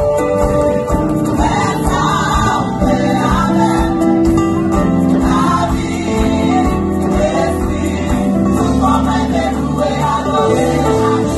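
Gospel choir singing a song together, with instruments backing them.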